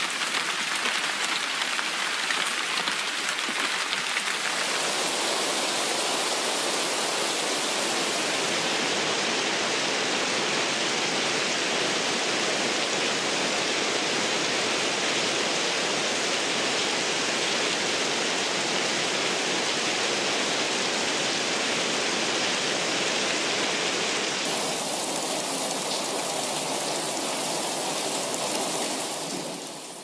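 Heavy rain pouring steadily onto dense broad-leafed rainforest foliage, a loud, even hiss. Its tone shifts a few times and it fades out near the end.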